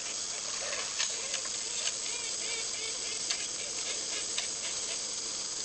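Steady hiss of an old videotape recording, with a few faint clicks.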